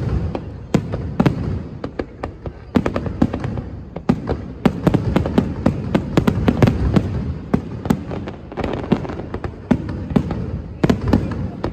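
Fireworks going off in a rapid, irregular barrage of sharp cracks and pops over a continuous rumble.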